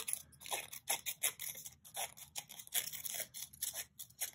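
Scissors cutting along a paper strip, a quick run of short crisp snips, several a second.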